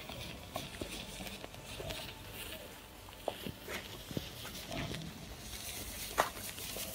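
A row of wooden matches burning, the flame catching match head after match head with a steady soft crackle and several sharp pops, the loudest about six seconds in.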